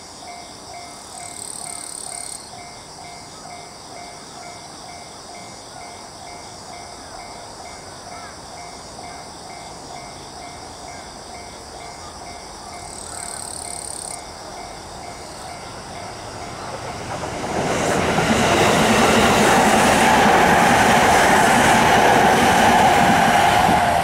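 Japanese level-crossing warning bell ringing in a steady, evenly repeating electronic ding. About seventeen seconds in, a train approaches and passes loudly over the rails, its running noise drowning out the bell.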